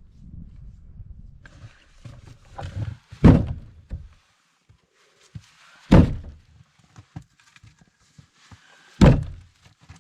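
Firewood being handled: three heavy wooden thunks about three seconds apart, with smaller knocks between them.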